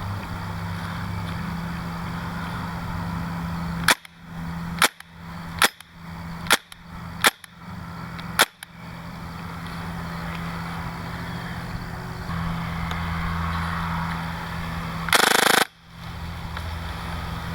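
KWA M11 NS2 gas blowback airsoft SMG firing six single shots about a second apart, then a rapid burst lasting about half a second near the end.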